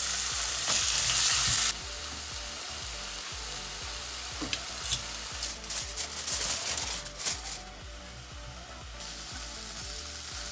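Chicken breast pieces sizzling in a little oil in a nonstick frying pan, a steady hiss that drops to a lower level about two seconds in. Through the middle there are crinkles and clicks as aluminium foil is handled over the pan.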